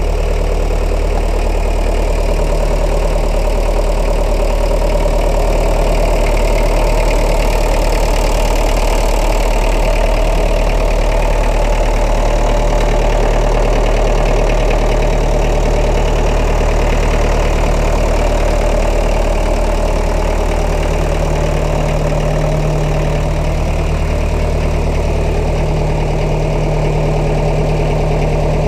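McCormick International D-432 tractor's diesel engine idling steadily.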